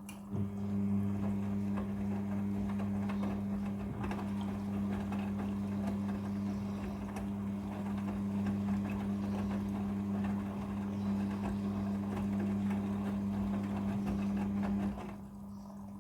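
Front-loading washing machine running in its prewash: a steady motor hum with a rushing, churning noise over it, starting abruptly just after the start and cutting off about fifteen seconds in.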